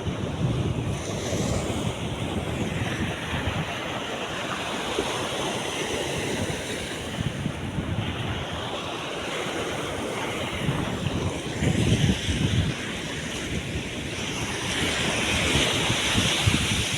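Wind gusting on the microphone over the steady wash of the sea.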